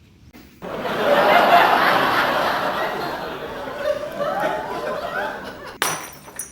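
People laughing, a dense burst that starts about half a second in and slowly fades, cut by a sharp knock near the end.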